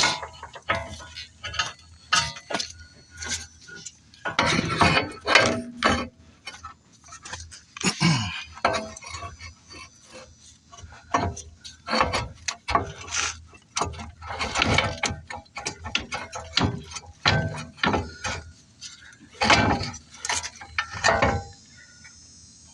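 Irregular metallic clanks, clinks and knocks of hand tools and steel suspension parts being handled during front strut work on an SUV.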